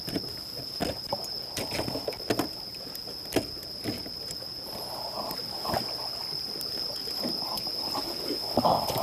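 Sea water sloshing and lapping against shore rocks, with scattered sharp clicks and knocks and a steady high-pitched whine.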